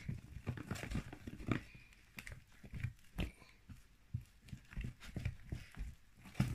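Faint, irregular light taps and knocks as a box of flour is tapped to sprinkle flour onto slime.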